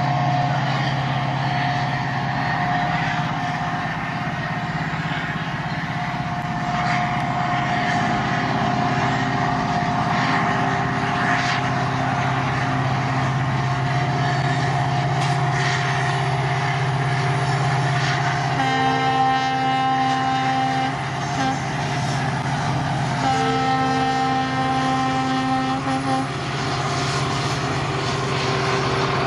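Train hauled by a diesel locomotive running past with a steady engine drone and occasional wheel clicks. About two-thirds of the way through, the horn sounds a long chord, then a short blip, then a second, longer chord.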